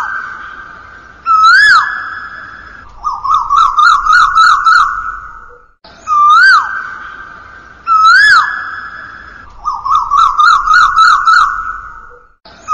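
Police siren: two rising-and-falling whoops followed by a fast warbling yelp of about four pulses a second, the cycle repeating about every six seconds.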